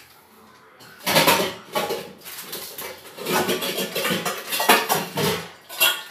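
Stainless-steel kitchen vessels clattering and clinking as they are rummaged through and pulled out, with a couple of sharper clinks near the end.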